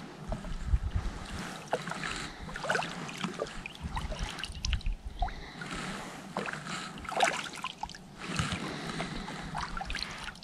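Water splashing and sloshing in irregular bursts, with small knocks scattered among them.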